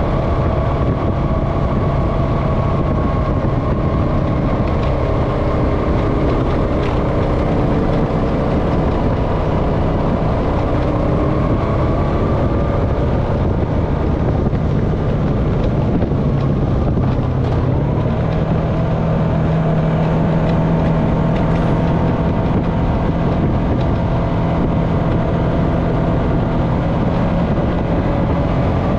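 Honda FourTrax Foreman ATV's single-cylinder engine running steadily while riding a dirt road. Its pitch dips about halfway through, then settles a little higher.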